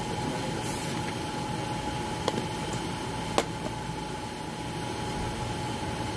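Steady machine hum with a faint high whine running through it, and two light clicks about a second apart near the middle.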